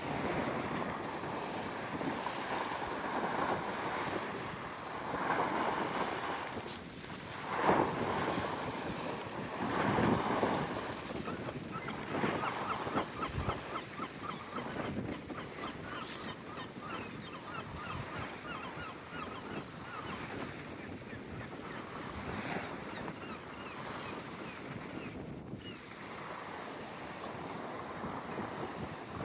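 Sea waves washing in, swelling and falling, with wind buffeting the microphone. Through the middle, birds call in a quick run of short notes.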